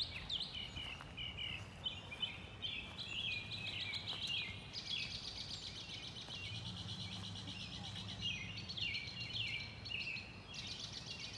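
Wild birds chirping and singing continuously in short repeated phrases, with a fast buzzy trill for a few seconds in the middle and again near the end, over a low steady hum.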